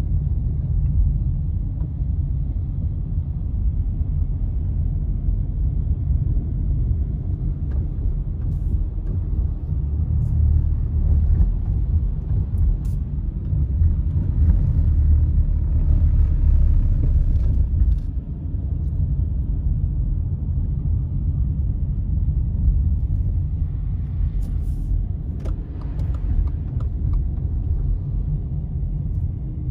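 Steady low rumble of a car's engine and tyres heard from inside the cabin while driving on a snow- and ice-covered highway, swelling a little in the middle, with a few faint ticks.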